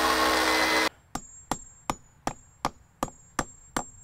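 Hammer drill boring into the stone wall's mortar, stopping abruptly about a second in. Then about eight sharp, evenly spaced knocks, roughly three a second: a metal expansion shield being hammered flush into the fresh hole.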